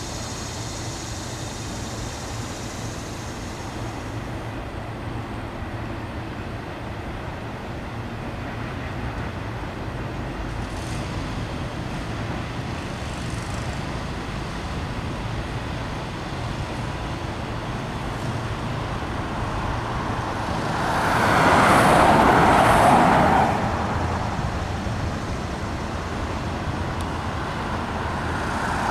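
Steady road traffic noise, with one vehicle passing close and loud about three quarters of the way through.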